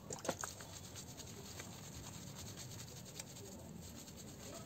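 Hands rubbing shampoo into a wet Lhasa Apso's coat: faint, soft wet rubbing, with a few short sharp sounds near the start.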